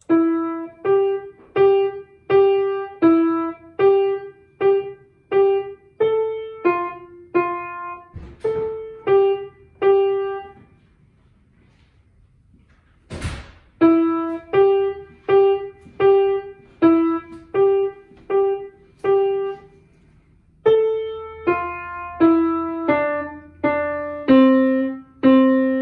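Upright piano played by a young child: a simple melody struck one note at a time, about one note a second. A little under halfway the playing stops for a few seconds, broken by a single sharp knock, then goes on.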